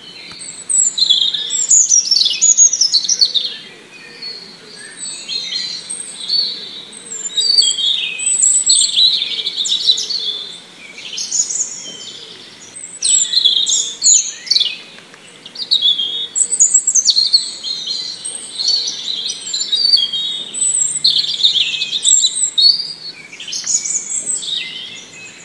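Birds chirping and singing: many short, high calls coming in bunches every few seconds.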